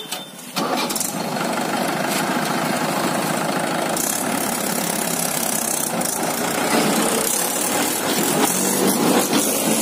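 Mahindra 585 DI tractor's 50 hp four-cylinder diesel engine running steadily, loud from about half a second in.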